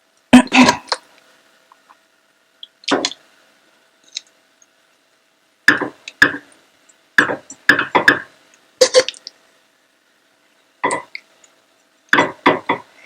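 Marinated chicken pieces being laid one by one into an oiled tawa: a series of short, irregularly spaced wet squelches and knocks.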